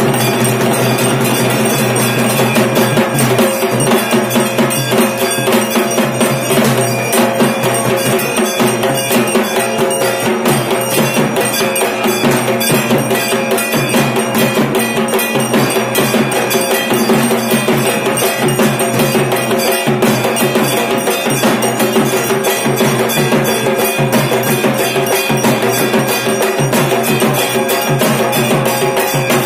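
Dhak drums beating a fast, unbroken rhythm for the Durga Puja arati, with ringing metal percussion underneath.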